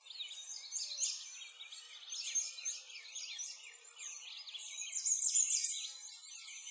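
A dense chorus of many songbirds chirping and singing over one another, with quick high rising and falling notes.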